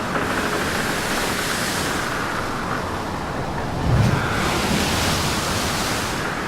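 Wind rushing over a GoPro microphone and water washing past a sailing boat's hull, with the hiss swelling and easing. A low thump comes about four seconds in.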